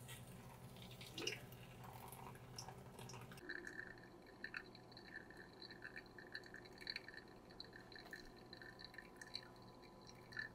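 Faint, irregular dripping of brewing coffee running through a filter, close to silence.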